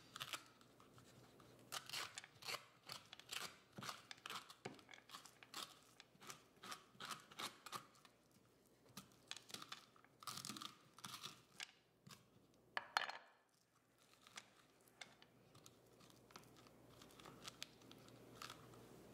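A metal spoon scraping seeds and stringy pulp out of a raw spaghetti squash half: a long irregular run of short, faint scrapes, with one sharper knock about two-thirds of the way through.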